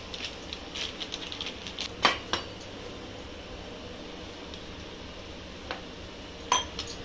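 A metal spoon clinking and scraping in a small stainless-steel bowl as ground spices are mixed into a paste with a little water. There is a run of small light ticks early on, and a few sharper clinks stand out, the loudest about two seconds in and again near the end.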